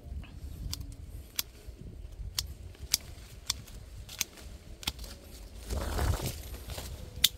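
Hand pruning shears snipping on durian branches: a run of sharp, irregular clicks. Leaves and twigs rustle about six seconds in.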